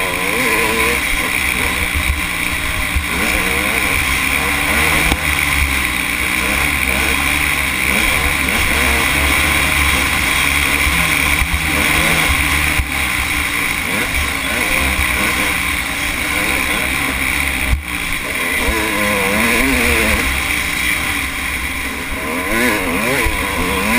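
Off-road motorcycle engine running hard across sand, its pitch rising and falling over and over as the throttle is opened and closed.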